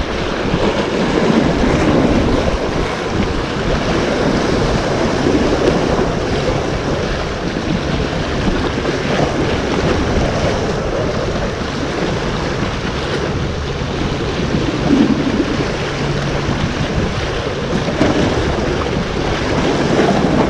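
Sea waves surging and washing over breakwater rocks, a steady rush of surf with wind buffeting the microphone.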